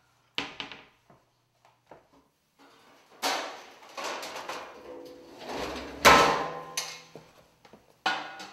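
Metal pots and pans clattering and ringing as the storage drawer under an electric stove is pulled open and rummaged through, with a few light clicks before it.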